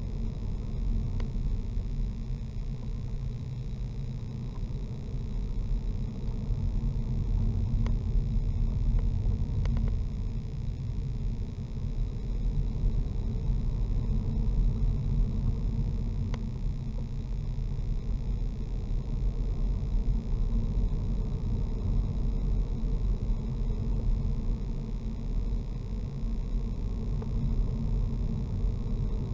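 Car driving along a narrow lane, heard from inside the cabin through a dashboard camera: a steady low rumble of engine and tyres on the road surface, with a few faint clicks.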